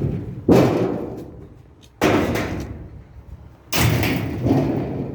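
Three loud bangs from the sheet-metal cabinet of a Roper washing machine being handled after its clips are released, each dying away quickly.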